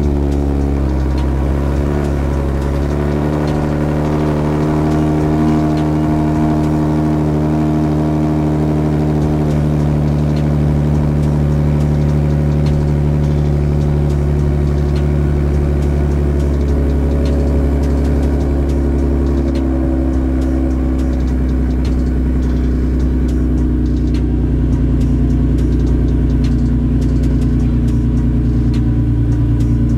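Nissan 370Z's 3.7-litre V6 idling at the exhaust just after starting, the fast idle settling slightly lower over the first few seconds, then holding steady. The engine is running on E85 through aftermarket headers.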